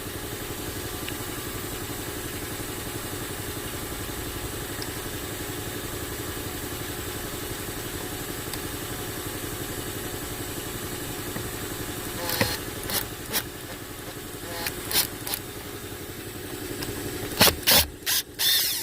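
Kia Optima idling with a steady hum. About two thirds of the way in, a screwdriver starts clicking and scraping at a Phillips screw under the steering column, with a few sharp, louder clicks near the end as the screw comes out.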